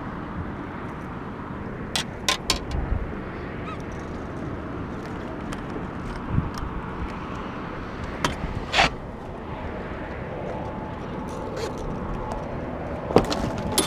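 Steady wind-and-water noise aboard a small fishing boat. Sharp clicks come about two seconds in and a short rush of noise near nine seconds. Knocks near the end come as a landed wiper (hybrid striped bass) flops on the carpeted deck.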